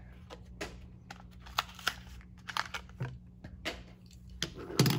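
Plastic blister packaging of a Hot Wheels die-cast car being crinkled and pulled apart by hand to free the car: a string of irregular sharp crackles and clicks, the loudest near the end.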